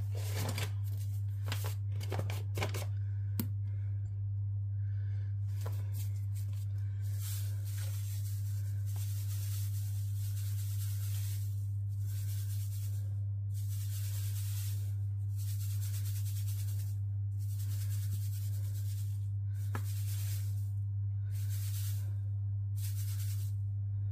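Granulated sugar poured from a paper bag into a Thermomix's stainless-steel mixing bowl, a hiss in repeated short spurts from about seven seconds in. Before it come paper-bag rustles and a few sharp clicks. A steady low hum runs throughout.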